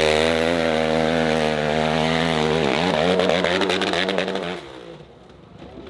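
Dirt bike engine revving hard and steady as the bike climbs, its pitch dipping briefly in the middle and recovering. About four and a half seconds in the engine cuts out abruptly as the rider comes off. A few faint clicks follow.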